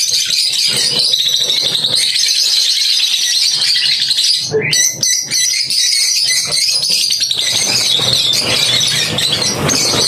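A flock of small birds chirping and chattering densely and continuously, with a brief break a little before halfway.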